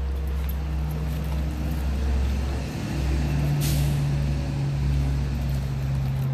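Heavy vehicle engine running steadily with a low hum, and a short air-brake hiss about three and a half seconds in.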